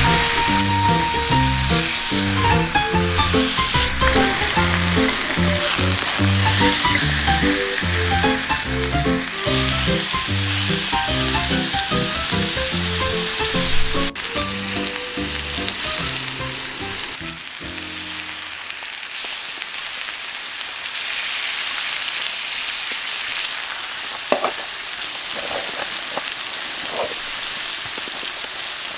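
Pork neck sizzling in a cast-iron skillet, a steady frying hiss, with a few light clicks near the end. Background music plays over roughly the first two-thirds and then stops.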